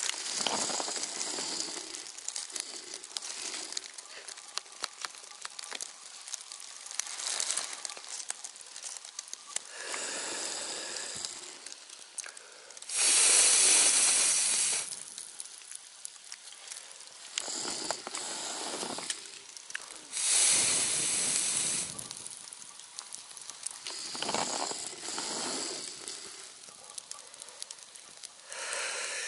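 Campfire crackling with sharp little pops, under repeated surges of hissing that swell and fade every few seconds; two of the surges, about a third of the way in and again about two-thirds in, are much louder and last about two seconds each.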